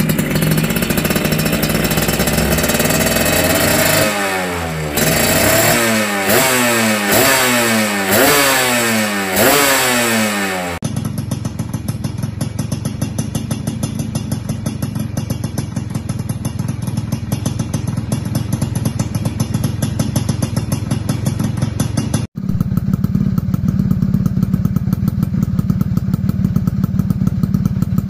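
Suzuki Tornado GX two-stroke motorcycle engine revved in a string of quick throttle blips, each rising and falling in pitch, for about the first ten seconds, then idling steadily with a fast even pulse.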